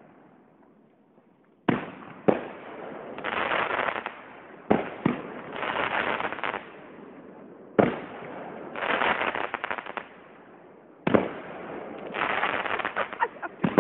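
Aerial fireworks bursting: a sharp bang every few seconds, starting about two seconds in, each followed about a second later by a long crackle of crackling stars.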